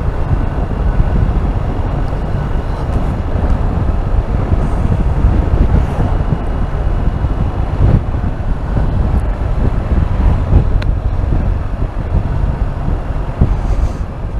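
Wind rushing and buffeting on the microphone as a motorcycle is ridden at speed, with engine and road noise underneath.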